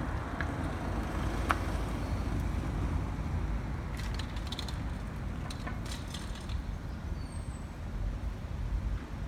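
City street ambience: a steady low rumble of traffic, with a few light clicks about four to six seconds in and a brief high chirp near the end.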